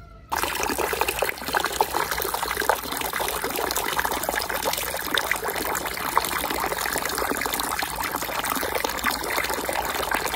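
Water running and splashing in a steady, crackling rush that cuts in abruptly.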